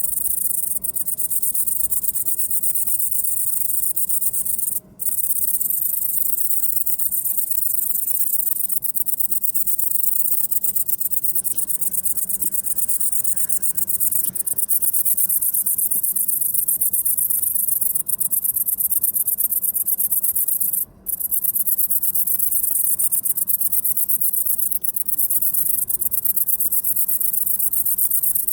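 Great green bush-cricket (Tettigonia viridissima) singing: a loud, continuous, very high-pitched buzz of rapid pulses that breaks off briefly twice.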